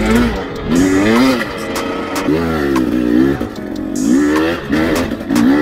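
Husqvarna TE300i dirt bike's two-stroke single-cylinder engine revving up and down under a rider on a trail, its pitch rising and falling about once a second.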